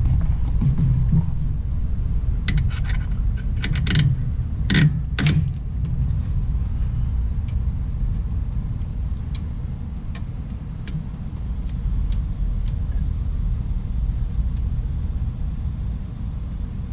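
Metal hand tools and hardware clinking against metal, a handful of sharp ringing clinks between about two and six seconds in, over a steady low rumble.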